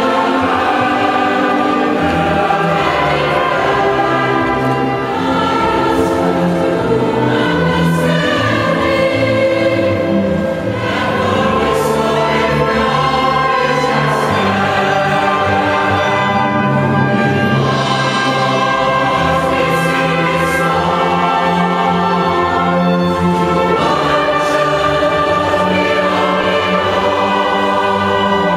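Mixed choir of men and women singing with a small string ensemble of violins, led by a conductor, in a large church.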